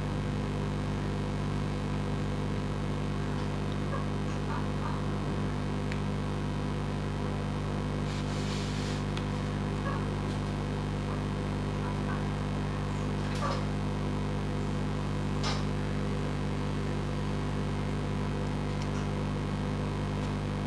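Steady low electrical hum throughout, with a few faint clicks and a brief soft hiss partway through.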